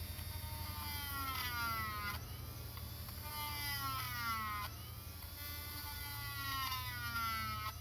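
High-speed rotary tool (Dremel) with a carbide burr, its whine sliding down in pitch again and again as the burr is pressed into the work, over a steady low hum.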